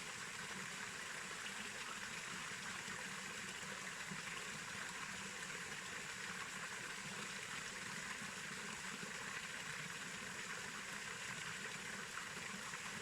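Waterfall pouring into a natural pool: a steady, unbroken rush of water.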